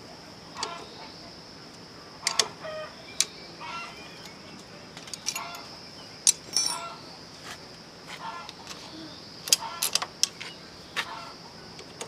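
Scattered sharp clicks and clinks of hand tools on metal motorbike parts during reassembly, with chickens clucking in short calls between them.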